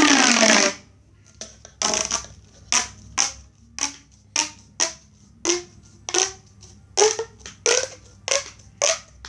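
Corrugated plastic pop tube being stretched and squashed by hand: a longer ribbed whirr with a falling pitch at the start, then a run of short popping crackles, one or two a second, as the ridges snap in and out.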